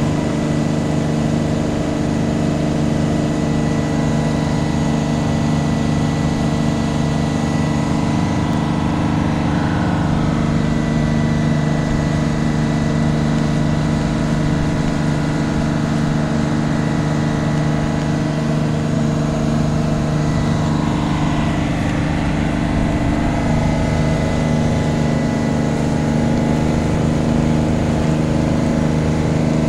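A river tour boat's engine running steadily, an even drone that holds the same pitch throughout.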